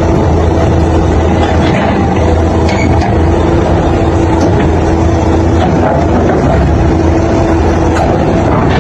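Heavy diesel engine of a Hyundai crawler excavator running steadily with a constant hum as the machine drives up the ramp onto a lowboy truck trailer.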